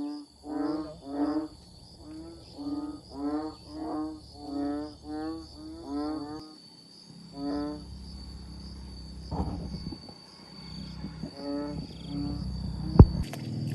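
An animal calling over and over: about ten short pitched calls in the first seven seconds, then two more spaced further apart. A low hum grows louder in the second half, a steady high whine runs underneath, and there is a single sharp knock near the end.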